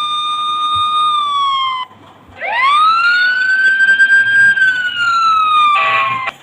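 Emergency vehicle siren wailing: two long wails that each rise, hold and slowly fall. The second wail cuts off abruptly near the end, with a short harsh burst over it just before it stops.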